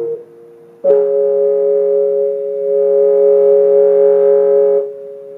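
Electric piano played through a loudspeaker: a steady two-note chord with overtones, struck about a second in and held evenly for about four seconds, then released, leaving a fainter tone near the end.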